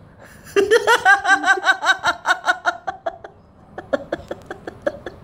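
A person laughing in a fast, high-pitched run of 'ha' pulses, about six a second, which fades after about three seconds into quieter, scattered chuckles.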